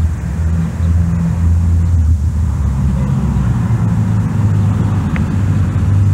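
Car engine and road noise, a steady low rumble, heard from inside a moving car.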